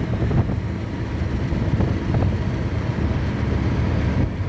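Steady low road rumble of a moving car, with wind buffeting the microphone.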